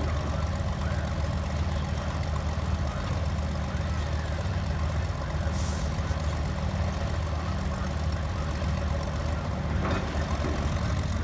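Heavy engine running steadily at an even low pitch, with a short hiss a little past halfway.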